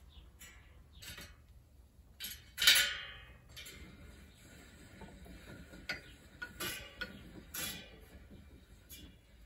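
Scattered sharp metallic clicks and ticks from a bicycle wheel being trued by hand, as spoke nipples are turned and the wheel is handled. The loudest click comes nearly three seconds in and rings briefly; a few more follow later.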